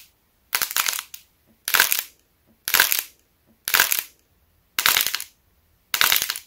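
Hardened light clay crackling and crunching as thumbs press through the dried surface of clay fried-egg models: six short bursts of crackle about a second apart.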